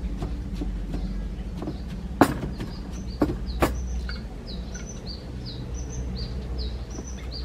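A wooden pestle knocks sharply against a stone mortar three times, around two to four seconds in. From about the middle on, a bird repeats a short high chirp every half second or so.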